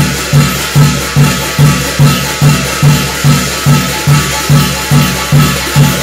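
Korean shamanic gut ritual percussion: a drum beaten in a steady, even beat of about two and a half strokes a second, over a continuous high metallic shimmer.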